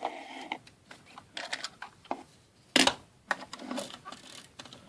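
Pull-back motor of a small plastic toy landspeeder being wound and worked, with scattered clicks and plastic knocks, the loudest about three seconds in.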